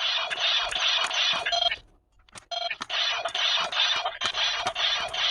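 Electronic sound effects and music from the small built-in speaker of a Chinese-made replica CSM Blay Rouzer toy sword, playing as cards are swiped through it. The sound stops briefly about two seconds in and then starts again.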